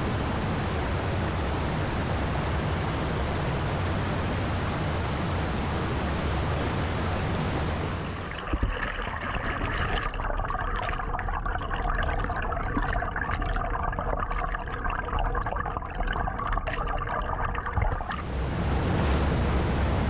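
Shallow beck water rushing steadily over stones. About eight seconds in the sound turns muffled and bubbly, with many small clicks, as it is heard from under the water. At about eighteen seconds the open rushing of water spilling over a small stone weir returns.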